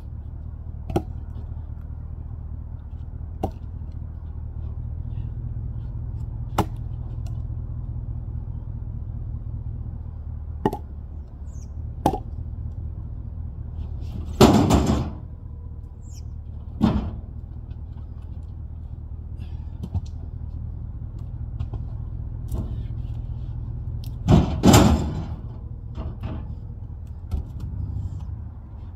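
Heavy log rounds dropped from a truck bed, landing with loud thuds about halfway through and again near the end, between scattered lighter knocks of wood being handled on the bed. A steady low rumble runs underneath.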